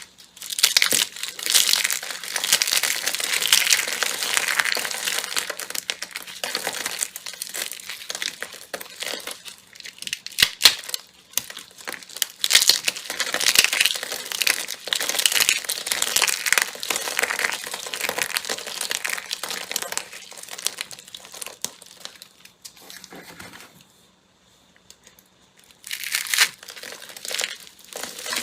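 Slime being squeezed and worked by hand, giving a dense run of small crackles and pops. It stops for a couple of seconds near the end, then starts again.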